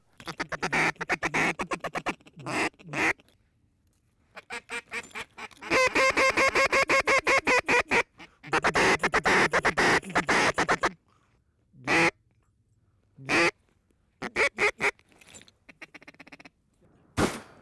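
Duck call blown by a hunter, sounding mallard-style quacks: short strings of quacks, then two long runs of fast, evenly spaced quacking, then a few single quacks spaced apart.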